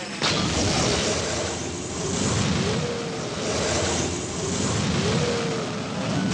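Cartoon sci-fi laser beam sound effect: a loud rushing hiss that starts abruptly and swells and fades several times, with faint wavering whistles inside it.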